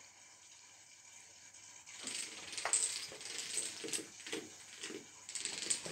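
A chain of dominoes toppling, a rapid clatter of small pieces tipping over and clicking against each other that starts about two seconds in.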